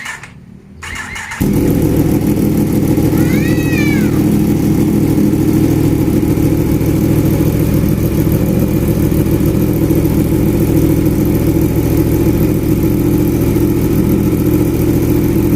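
Yamaha MT-10's crossplane inline-four, fitted with an SC-Project aftermarket exhaust, starting up: a short crank about a second in, then it catches suddenly and settles into a loud, steady idle.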